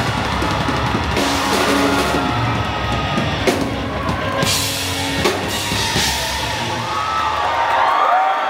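Live rock band playing a loud instrumental passage, the drum kit to the fore with several cymbal crashes over bass and guitar.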